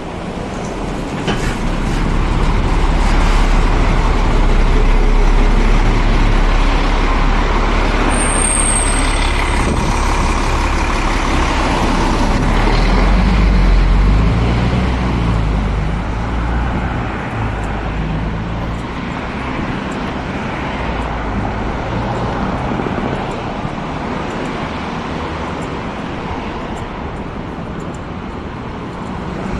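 City bus running close by amid road traffic, loudest through the first half, with a brief high squeal about eight seconds in; then a steady hum of passing traffic.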